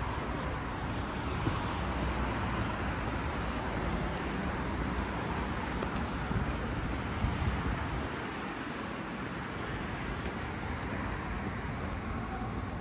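Steady road traffic noise of a city street, with cars passing.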